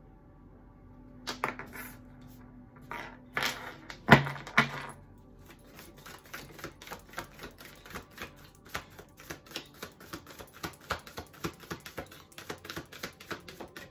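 A deck of oracle cards being handled and shuffled: a few scattered taps and one sharp knock about four seconds in, then a quick, even run of card clicks through the second half.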